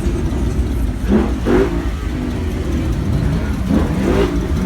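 Truck engine running with a steady low rumble, its pitch rising briefly twice, about a second in and again near the end.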